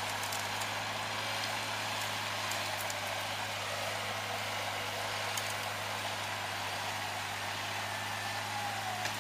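Off-road vehicle's engine running steadily at low revs as it creeps forward in the rut. A faint whine comes in near the end.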